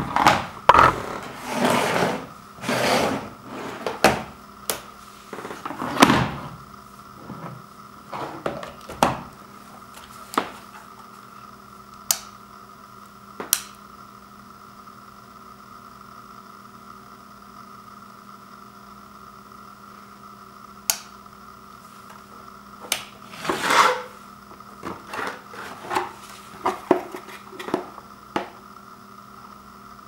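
A plastic power strip and its cord being handled over a wood floor: scattered knocks, rubs and clicks, thickest in the first ten seconds and again near the end, with a few single clicks in the quieter middle. A faint steady hum runs underneath.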